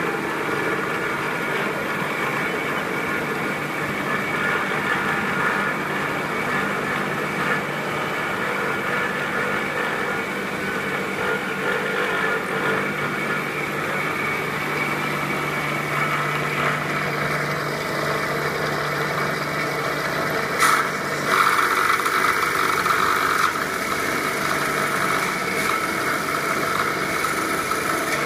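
Wood bead-making lathe running steadily with a machine hum. About two-thirds of the way through there is a sharp click, followed by a louder stretch of about two seconds.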